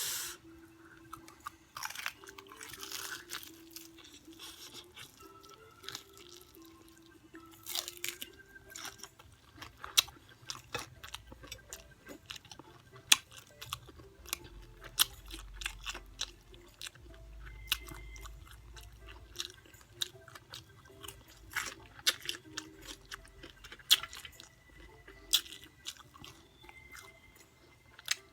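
A person chewing extra-crunchy fried chicken up close, with many sharp crunches and wet mouth sounds scattered throughout.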